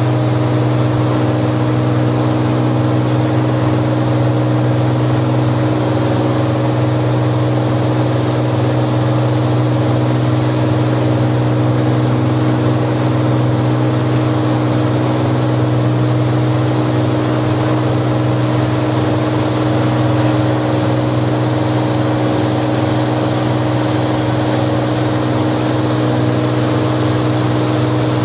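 Cirrus SR22's six-cylinder piston engine and propeller running steadily in flight, heard inside the cabin: an even, unbroken drone, a strong low hum with several steady higher tones over it.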